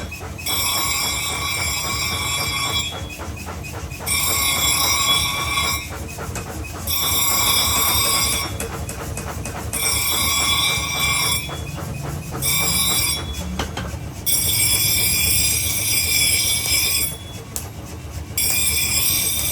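Metal grinding on steel: a high, squealing whine that comes in passes of a couple of seconds each, with short breaks between them.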